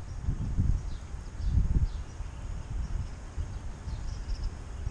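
Wind buffeting the microphone in uneven low gusts, with a few faint, short high bird chirps now and then.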